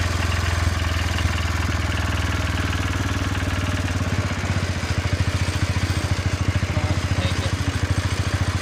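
Wheel Horse C-81 garden tractor's single-cylinder Kohler engine running steadily while the tractor drives, changing about four seconds in to an uneven, pulsing putt.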